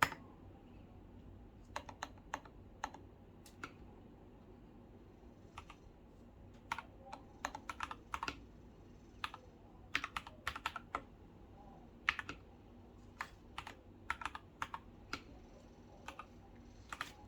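Typing on a Keychron K4 mechanical keyboard with brown tactile switches and Cherry-profile keycaps: keystrokes in irregular bursts with short pauses, one longer pause a few seconds in.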